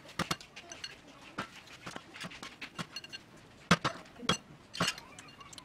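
Cleaver chopping small green fruits on a wooden chopping board: a run of irregular sharp knocks, the loudest about two-thirds of the way through, with light clinks of spoons against a ceramic bowl and metal tray.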